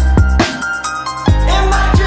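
Background music with a steady beat and deep bass; the bass drops out for under a second and comes back about a second and a half in.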